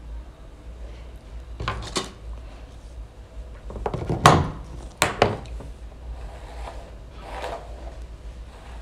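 A few scattered clicks and knocks of small objects being handled and set down, the loudest about four seconds in, over a low steady hum.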